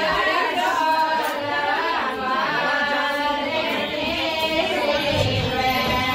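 Women singing a traditional Rajasthani wedding song together, several voices holding long wavering notes.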